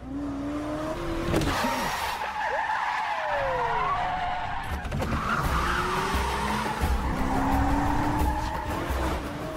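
Car-chase sound effects: car engines revving hard, their pitch climbing in several runs, with tyre squeals and skidding.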